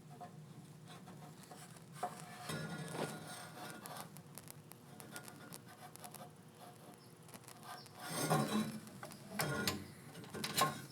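Metal furnace parts being handled and moved: rubbing, scraping and light clinks, loudest in a few bursts near the end, over a steady low hum.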